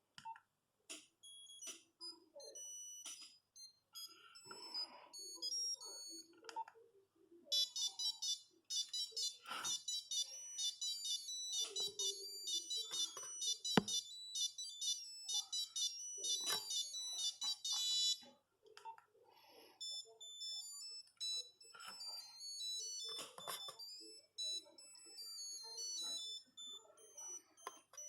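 Nokia 8210 mobile phone playing its monophonic ringtones: fast tunes of short, high beep notes, one after another. A few brief snatches come first, a dense tune follows, and another tune starts about twenty seconds in, with a few sharp clicks among the notes.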